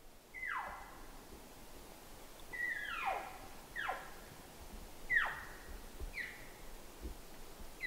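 Elk mewing: about six short calls, roughly one a second, each a high note that slides sharply downward.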